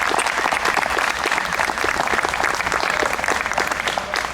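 Crowd applauding, a dense steady clapping that begins to fade near the end.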